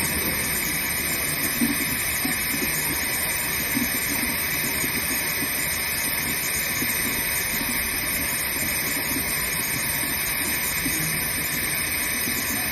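Steady hiss of a laser stent-cutting machine running as it cuts a cobalt-chromium L605 stent tube, even in level throughout.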